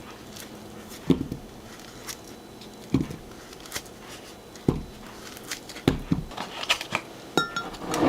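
Kitchen utensils and dishes being handled on a counter: scattered knocks and clicks every second or two, with a short ringing clink near the end.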